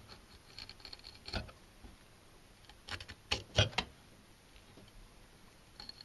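Kitchen knife opening a small pale chub along its back on a cutting board: faint scraping of the blade through the fish, with a few sharp clicks of the knife on the board about three to four seconds in.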